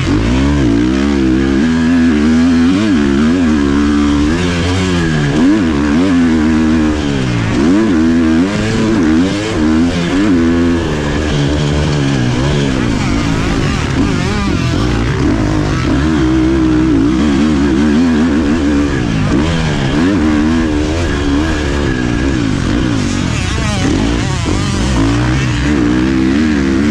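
Husqvarna FC 350 four-stroke single-cylinder dirt bike engine revving hard, its pitch climbing and dropping over and over as the rider opens the throttle, shifts and rolls off through a rough sand track, with a hiss of wind over the helmet-mounted microphone.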